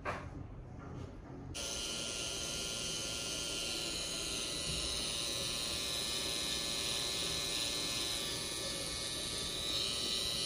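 Electric tattoo machine buzzing steadily as its needle works ink into the skin of a forearm, starting about a second and a half in.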